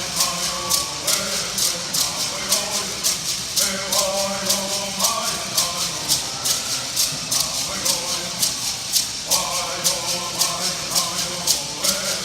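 Bird singers shaking gourd rattles in a steady, even beat of about three strokes a second, singing in unison in short phrases. The rattles keep going alone between the phrases.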